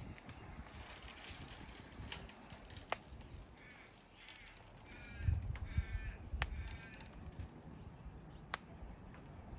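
A bird calling in a quick series of five short, evenly spaced calls about halfway through, with a few sharp clicks scattered around them.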